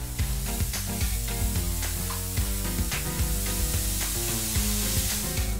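Instant noodles and diced vegetables sizzling in a frying pan, with a steady hiss, over background music.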